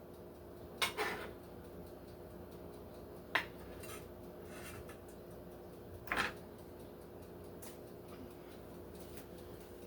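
A few short clinks and knocks of kitchen utensils on dishes or a cutting board, spaced seconds apart, over a steady low hum.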